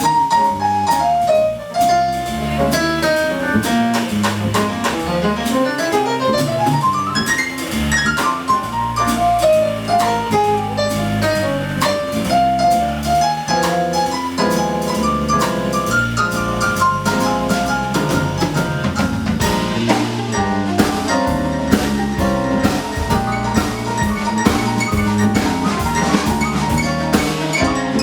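Jazz band playing an instrumental passage with no vocals: drum kit keeping time under a solo of fast running lines, with quick rising runs of notes.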